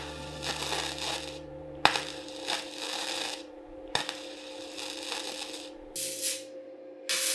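Wire-feed welder arc crackling and sizzling as two steel tank halves are stitched together along their seam. The welding comes in about five short runs of a second or so, each starting with a sharp crack and separated by brief pauses.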